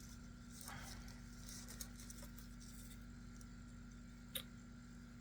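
Quiet handling of small unboxed items: a few faint rustles and one small sharp click about four and a half seconds in, over a steady low electrical hum.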